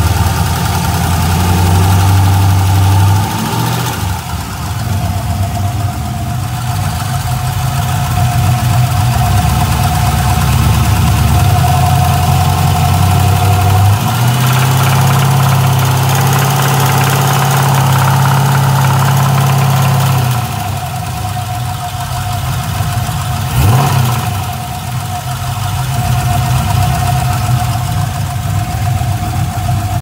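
LS1 5.7-litre pushrod V8 running at idle, raised to a higher engine speed for several seconds past the middle and then dropping back. It makes a noise the owner cannot place, which he suspects is lifter tick or a spun bearing, though the engine otherwise runs normally.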